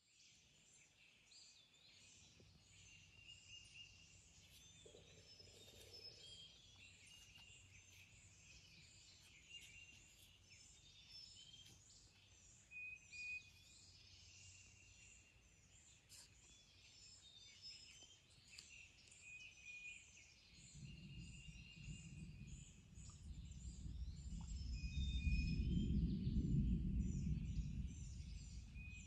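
A morning chorus of many wild songbirds singing and calling at once, with repeated chirps and whistles. In the last several seconds a low rumble swells and then fades; it is the loudest sound here.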